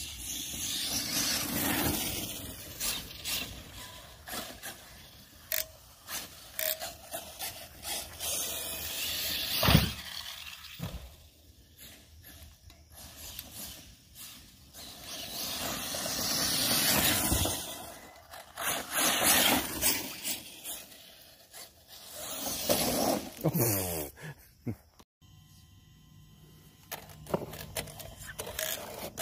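Arrma Talion RC truggy with a 1700 kV brushless motor on 4S being driven hard over rough ground: swelling runs of tyre and chassis scraping noise with scattered clicks and knocks, and one sharp, loud impact about ten seconds in. A short rising and falling motor whine comes a little before the end.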